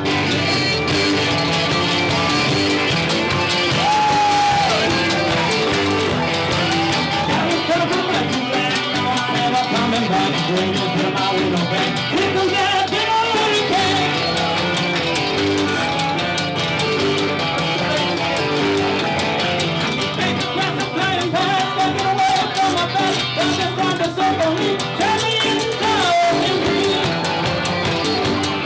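Bluegrass-rock band playing live, with a man singing lead over strummed guitars.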